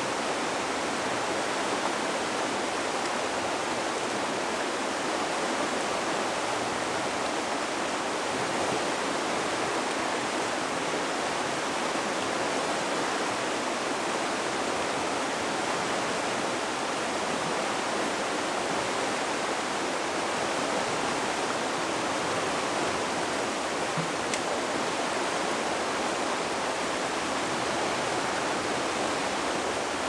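Swift river water rushing over rocky shoals, a steady, even rush of water with no change in level.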